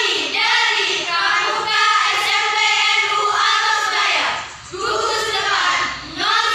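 A group of young voices singing together in long held phrases, with a short break about four and a half seconds in.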